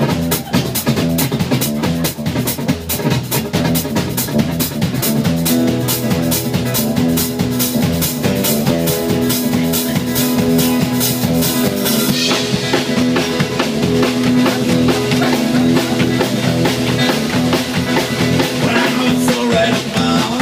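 Live rock band playing an instrumental passage: a drum kit keeps a fast, even beat under bass and electric guitar. About twelve seconds in the rapid drum hits drop out, and the bass and guitar play on.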